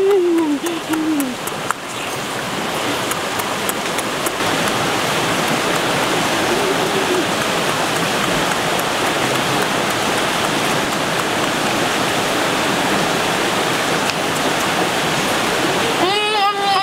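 Steady rush of a fast-flowing rocky stream, turning a little louder about four seconds in. A short pitched hum fades out about a second in, and another starts near the end.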